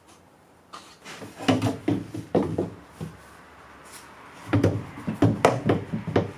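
PVC drain pipe and fittings knocking and clattering as they are handled and fitted. There are two bursts of knocks, one about a second and a half in and another about four and a half seconds in.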